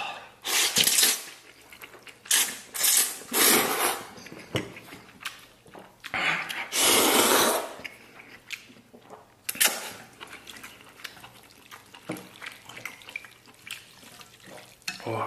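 A person slurping noodles, several loud wet sucks of noodles into the mouth, the longest about three and seven seconds in, with softer chewing and mouth sounds after them.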